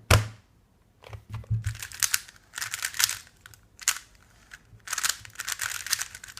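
A sharp knock, then quick, irregular bursts of hard plastic clicking and rattling as small plastic parts are handled.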